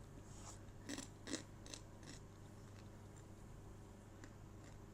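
Faint crisp crunches from a deep-fried grasshopper, a few short crackles about a second in, over a steady low room hum.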